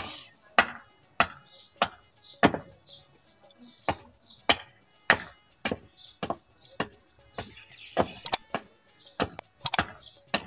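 Small hatchet chopping the end of a wooden stake to a point, one sharp blow about every half second and a little quicker near the end.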